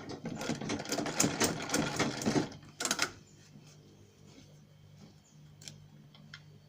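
Electric sewing machine stitching at speed, then stopping about two and a half seconds in. A click follows, then a low steady hum with a few faint ticks.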